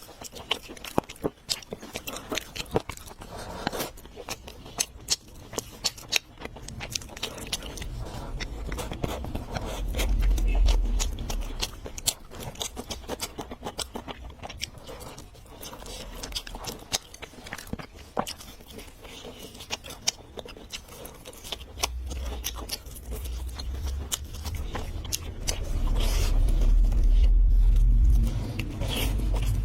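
Close-miked eating: chewing and biting with many sharp wet clicks. A low rumble comes about ten seconds in and again, louder, near the end.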